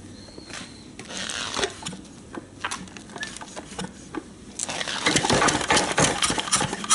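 Early Yanmar K2 single-cylinder diesel engine being hand-cranked, then catching about four and a half seconds in and firing in a fast, loud run of knocks as it starts from cold.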